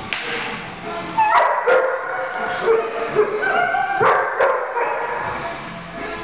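Dogs yipping and barking, with sharp yips about a second and a half in and again around four seconds in.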